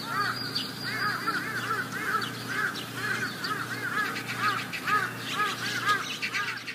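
Many birds calling at once: short rising-and-falling calls, several a second and overlapping, over a low steady hum.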